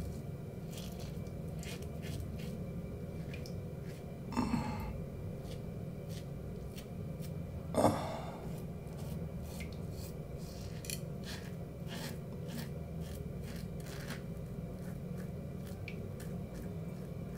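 Safety razor scraping stubble off a lathered neck in many short, sharp strokes over a low steady hum. Two louder brief sounds come about four and a half and eight seconds in.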